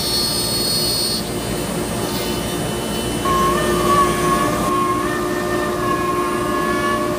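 CNC router running and cutting wood, a steady loud mechanical whine whose pitch content shifts: a high tone drops away about a second in, and a new, higher whine enters about three seconds in.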